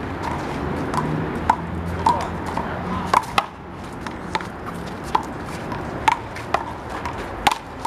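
Handball rally: a rubber handball slapped by open hands and smacking off the wall and pavement, a quick run of sharp, irregular smacks, several close together about three seconds in.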